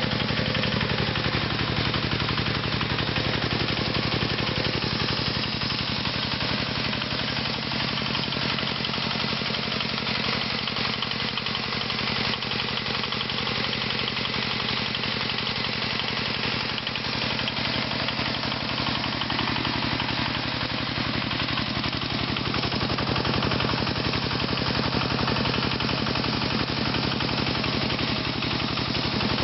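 Single-cylinder engine of a mini-tractor converted from a walk-behind tractor, running steadily with a fast, even chugging while pulling a plow through soil.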